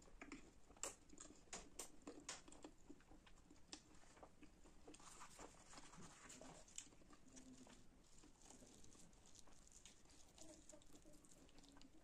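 Close-up chewing with wet, clicking mouth sounds from eating chhole bhature, several sharp clicks in the first few seconds. About halfway through, a soft crackle as a piece of puffed, deep-fried bhatura is torn off.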